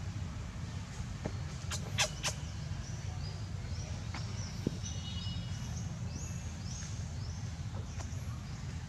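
Outdoor ambience with a steady low rumble, three sharp clicks about two seconds in, then a run of faint, short high chirps repeating about once a second until near the end.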